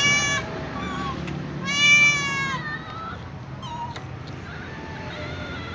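Several domestic cats meowing. There is a loud meow right at the start, and a louder, longer one about two seconds in. Several fainter, shorter meows follow.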